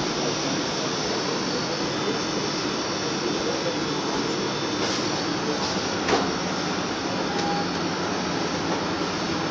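Steady rushing hum of kitchen fans running. About five and six seconds in, there are two faint knocks from dough being handled on the steel counter.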